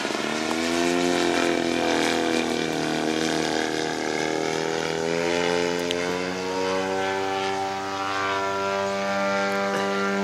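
Radio-controlled model airplane's engine and propeller running in flight. The pitch rises about a second in, sags slowly, then climbs again from about six seconds in and holds steady as the throttle changes through a manoeuvre.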